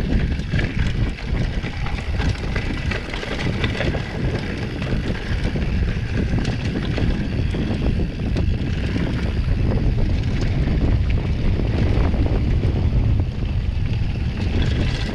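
Wind buffeting the microphone of a mountain bike rider heading downhill, under a steady rumble of knobby tyres on the dirt trail, with the bike clicking and rattling over bumps.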